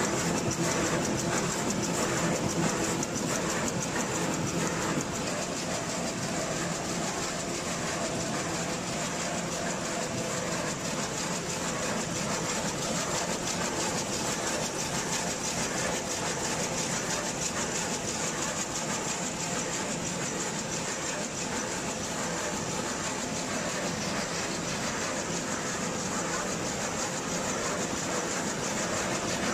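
Velvet rapier loom with dobby (model 758R) running at production speed: a loud, steady clatter of rapid, even beats.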